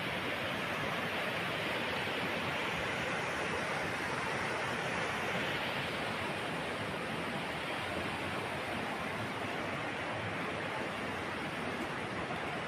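Floodwater rushing past in a steady, unbroken wash of noise.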